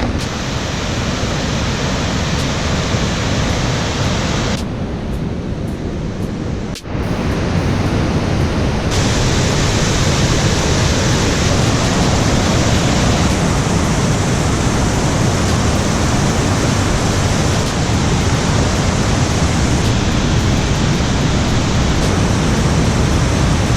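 Waterfall on Havasu Creek: a loud, steady rush of falling water, with a brief dip about seven seconds in.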